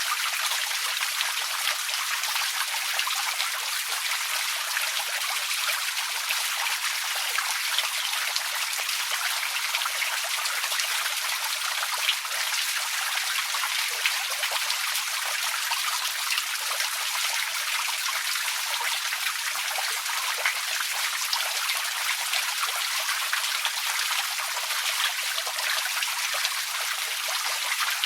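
Outdoor water fountain running: a steady splash and trickle of falling water, flecked with many small drop sounds.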